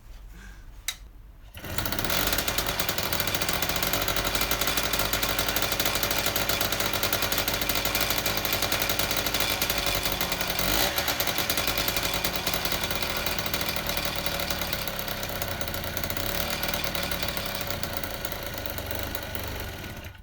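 A freshly rebuilt Piaggio moped's 50cc two-stroke engine starts about a second and a half in and runs steadily and loudly, with one brief rev near the middle. The engine fades slightly toward the end, then cuts out suddenly. It is an engine that will not hold its idle.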